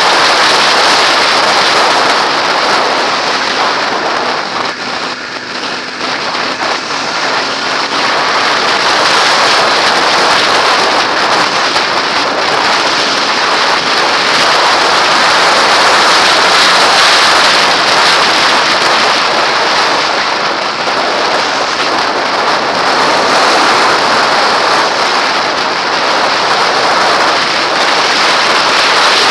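Loud, steady wind rush over a helmet-mounted camera on a motorcycle ridden at highway speed, easing briefly about five seconds in.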